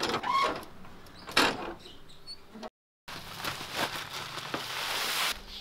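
Metal clicks and knocks of a truck's cargo-door latch being worked, then, after a brief gap, the scratchy rustle of woven plastic rice sacks being lifted and shifted, growing louder before it stops near the end.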